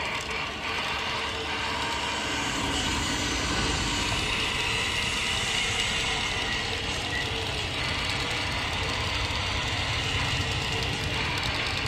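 Diecast toy trucks' wheels rolling over a ribbed mat, making a steady rolling rattle with a low rumble.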